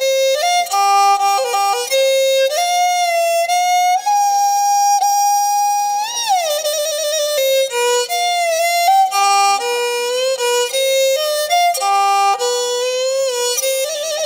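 Background music: a single instrument plays a slow solo melody. The notes are held, with vibrato and sliding pitch changes, and one long note midway swoops up and then falls away.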